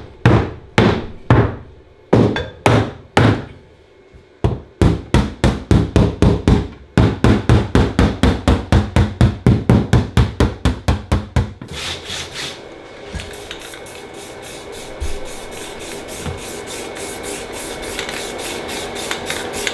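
Hammer blows on the car's bent rear wheel-arch metal, hammering it out so the wheel will fit. They start at about two a second and speed up into a fast run of blows. About twelve seconds in they give way to quicker, quieter scraping strokes on the metal.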